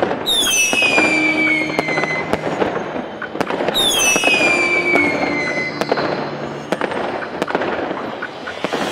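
Fireworks: two whistling rockets, each a long whistle falling in pitch over about two seconds, the second starting about three and a half seconds after the first, over continuous crackling and scattered sharp pops.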